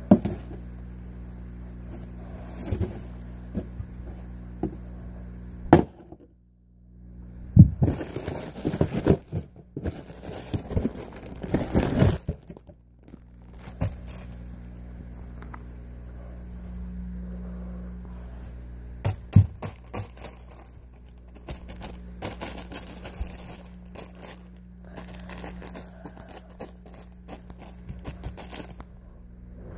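A cardboard box and its packing being handled and torn open: bursts of scraping and rustling with scattered sharp knocks, over a steady low hum.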